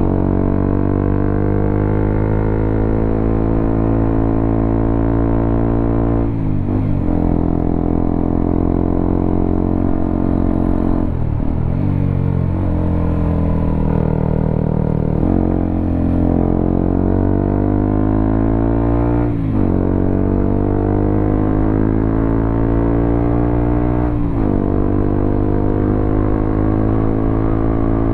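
Honda CBR motorcycle running on the road through an aftermarket WRX K3 oval exhaust with a standard engine, the note rising and falling with the throttle. Four times the note briefly breaks off and picks up again, as at gear changes.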